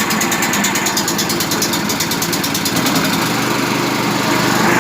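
Predator 212 single-cylinder four-stroke gas engine on a wheelbarrow air compressor running steadily just after starting, with a fast, even firing beat. About three seconds in, the sound changes to a steadier, slightly louder hum.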